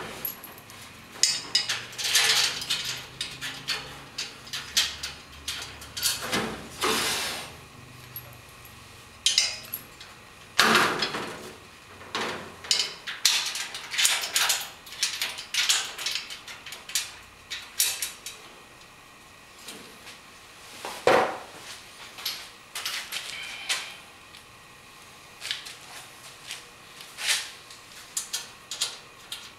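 Irregular metal knocks, clanks and scrapes as a square-tubing shelf is handled and set against a sheet-metal backsplash, with a few longer scraping slides among the sharp taps.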